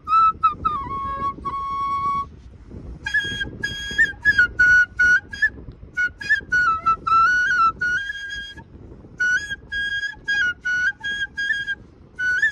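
A bansuri, a side-blown flute, playing a song tune as a single melody line of held and stepping notes, in phrases with short breaks between them about two, six and nine seconds in.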